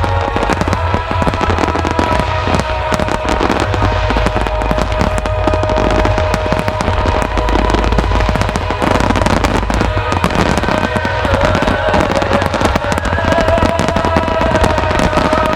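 Starmine fireworks barrage: a dense, unbroken run of aerial shell bursts and crackle, with show music playing underneath.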